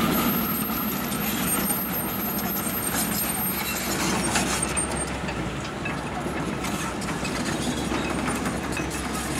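Rumble and wheel noise of a loaded container freight train fading as its last wagons draw away down the line, settling into a steady low rumble with a few faint clicks.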